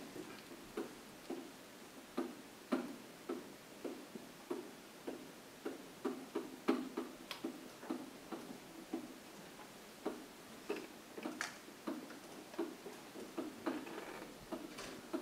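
A pen tapping and knocking on an interactive whiteboard's surface as words are handwritten: short, irregular taps, about two to three a second, with a few sharper ones.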